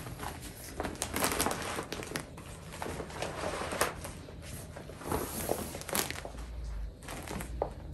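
Deflated SHOSU ride roll of soft frosted PVC being unfolded and shaken out by hand: irregular crinkling and rustling of the vinyl sheet.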